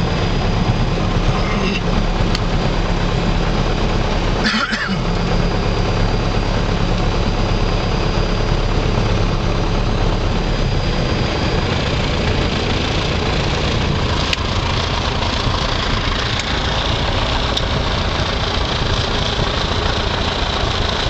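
Piper Cherokee 140's four-cylinder Lycoming engine and propeller running steadily, heard from inside the cabin.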